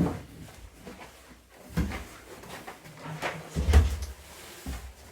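A few knocks and low thumps: one about two seconds in and a louder one a little before four seconds.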